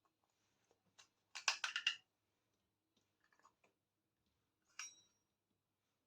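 Small hard toy pieces clicking and tapping together as they are handled: a quick run of clicks about a second and a half in, a few faint taps, then a single clink that rings briefly near the end.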